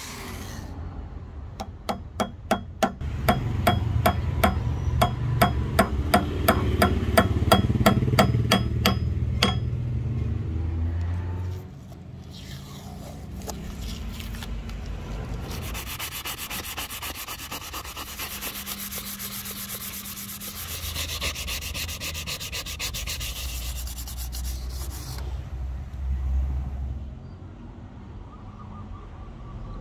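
A curly padauk axe handle being shaped, with rhythmic rubbing strokes on the wood, about four a second, through the first ten seconds. A finer, faster scraping follows from about the middle to near the end.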